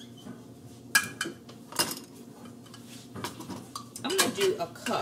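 Kitchen utensils and dishes clinking and clattering as they are handled: a couple of sharp clinks about one and two seconds in, then a busier run of clinks near the end.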